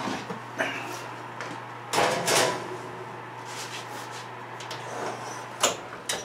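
Lidded stew pot set into a wall oven, clattering onto the metal rack about two seconds in, followed near the end by the oven door being shut with a sharp bang and a click.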